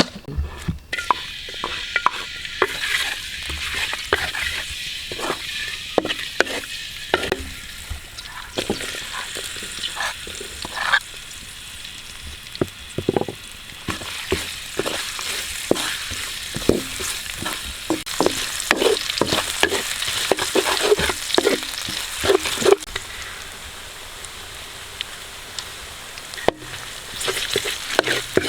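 Food frying in a hot pan: a steady sizzle, with repeated knocks and scrapes of a utensil stirring it.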